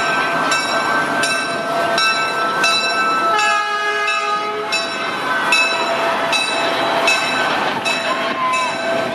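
Budd RDC railcar passing slowly at a level crossing, with the crossing bell ringing about twice a second. Around three seconds in, the railcar's horn sounds once for about a second and a half.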